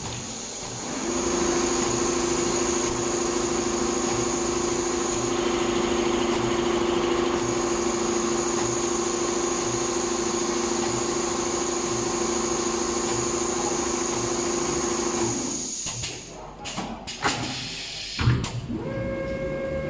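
Richpeace multihead leather sewing machine running: a steady motor whine with a low hum and a high tone comes up about a second in and stops after about 15 seconds, followed by a few clicks and knocks.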